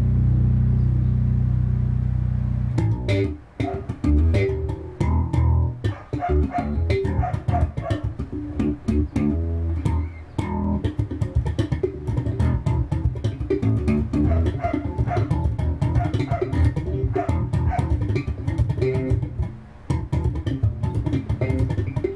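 Warwick electric bass played with slap technique: a low note held ringing for about three seconds, then a fast run of thumb-slapped and popped notes with sharp string clicks.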